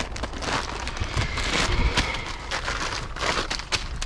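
Rustling and irregular clicks of a person moving about and handling things, with crinkling like a plastic bag.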